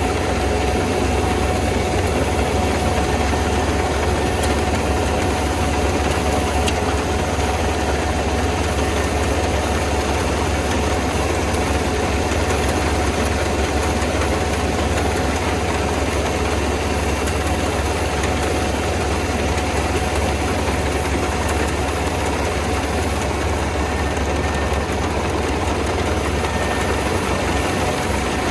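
Kubota ER470 combine harvester's diesel engine running steadily, with a constant low drone and a steady whine.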